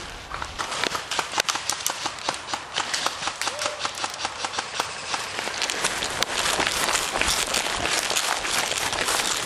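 Footsteps and the crackle and rustle of brush as someone moves quickly through undergrowth, a dense, irregular run of snaps and swishes.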